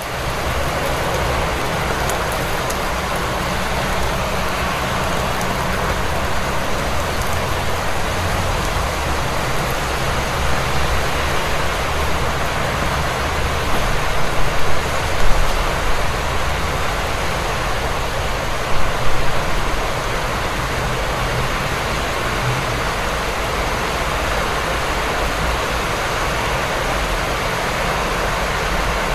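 Steady rain falling in a city street, with a low rumble of traffic underneath. The level swells briefly near the middle, then again a few seconds later.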